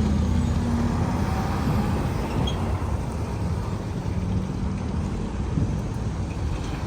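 Road traffic going by, including heavy trucks: a steady rumble of engines and tyres that eases off slightly, with no horn.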